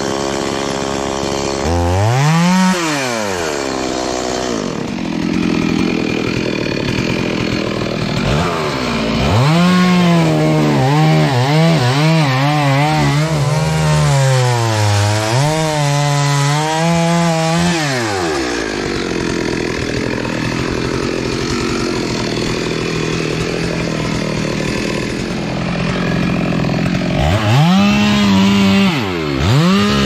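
Chainsaw cutting through a coconut palm trunk, its two-stroke engine revving up and down under load in several cuts, one long cut in the middle, and dropping back to a steadier run between them.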